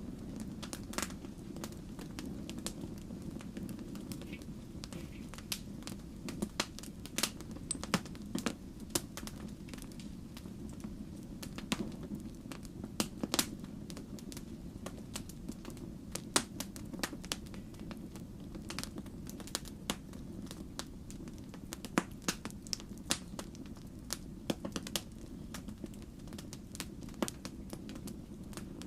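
Wood fire crackling in a fireplace: frequent irregular sharp pops and snaps over a low, steady rumble.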